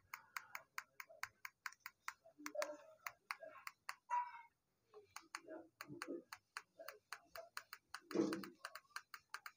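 Faint, rapid clicking of a satellite receiver's remote-control buttons being pressed over and over, about four clicks a second.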